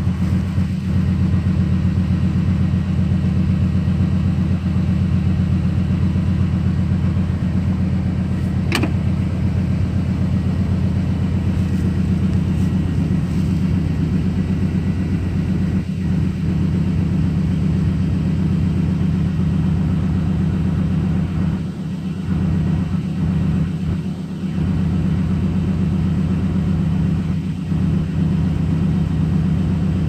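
Vehicle engine idling steadily with a low hum.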